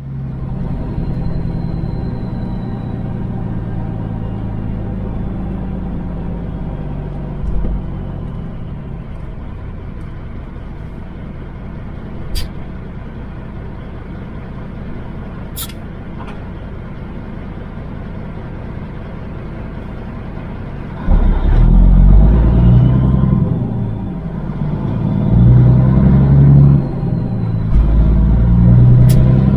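Semi truck's diesel engine idling steadily, then about two-thirds of the way in getting much louder and surging up and down several times as the truck accelerates. A few sharp clicks sound over the idle.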